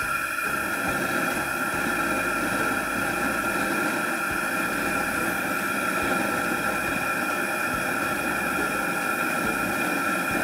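Outdoor propane burner running steadily, a constant rushing hiss with a faint steady high tone in it, as it heats a carbon steel wok for seasoning.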